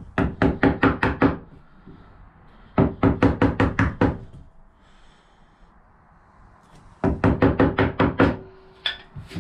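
A metal-headed hammer tapping a chisel in quick light strikes, about six a second, each with a short ring, in three runs of roughly a second with pauses between and a few more strikes near the end. The chisel is chopping a small V-groove just short of a knife-scored line in a wooden board, to give a saw blade a start.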